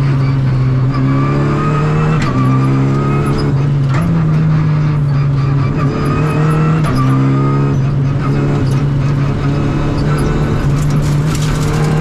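Renault Clio rally car engine at speed, heard loud from inside the cabin. The revs climb and drop back several times.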